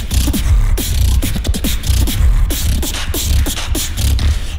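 Competitive battle beatboxing: a dense kick-and-snare beat with sharp clicks over a constant deep vocal bass, dotted with short falling pitched sounds.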